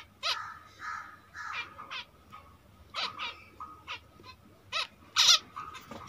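Jumbo zebra finches calling: a string of about ten short calls at irregular intervals, the loudest near the end.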